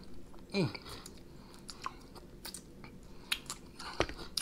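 Close-up chewing of chicken wing meat and gristle: scattered wet mouth clicks and small crunches. A brief low vocal sound comes about half a second in, and a sharper click just before the end.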